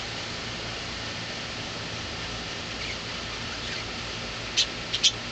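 Pet parakeets chirping: a couple of faint chirps around the middle, then several short, sharp, high chirps near the end, over a steady background hiss.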